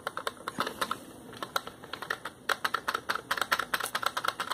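Typing on a computer keyboard, keys clicking quickly. A short run comes about half a second in, then after a brief pause a longer burst of rapid keystrokes starts about two seconds in.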